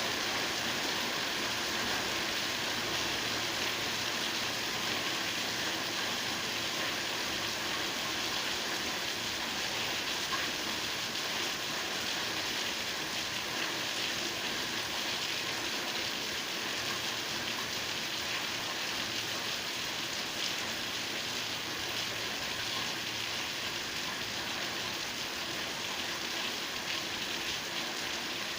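Steady rain falling, a continuous even hiss with faint scattered drop ticks.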